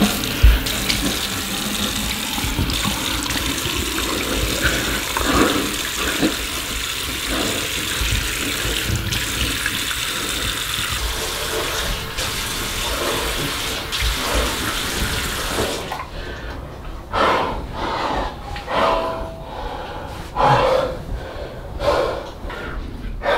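Bathroom sink tap running steadily, shut off suddenly about two-thirds of the way through, followed by a few short scattered sounds.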